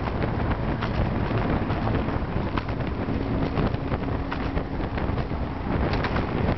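Wind buffeting the microphone of a camera on a moving road bike, a steady rushing noise with frequent crackles. A faint low hum runs through the middle.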